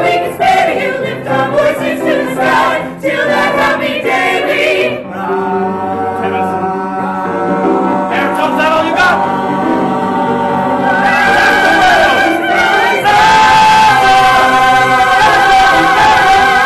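A musical-theatre cast of mixed voices sings a gospel-style choral number in full voice, accompanied by piano. About two-thirds of the way through the group settles on a long held chord, which swells louder near the end.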